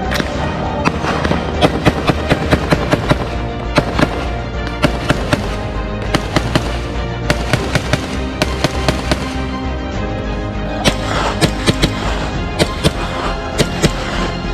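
Music playing over a quick, irregular series of sharp cracks, several a second at times: gunfire at a shooting range.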